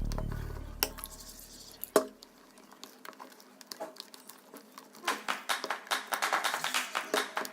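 Crunchy bubbly slime being squeezed and poked by hand: scattered sharp clicks, then from about five seconds in a rapid run of small crackling pops. Electronic background music fades out over the first two seconds.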